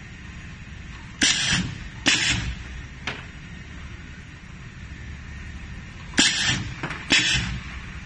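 Model 310 pneumatic wire stripping machine cycling twice. In each cycle there are two sudden bursts of air: the cylinders fire with a clack and a short hiss of exhausting air, then fire again under a second later as they clamp the cable and pull off its insulation.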